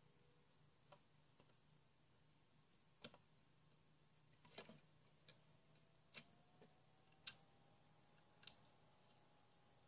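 Near silence with a few faint, irregular clicks and taps, roughly one a second, as a soldering iron works on the LED mount of a solar search light to desolder the faulty LED.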